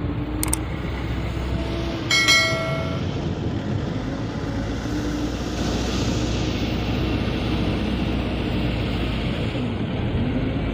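Heavy diesel engines of a Caterpillar 950E wheel loader and a dump truck running steadily with a low rumble. About two seconds in a short, high tone with several overtones sounds, the loudest moment, after a sharp click near the start.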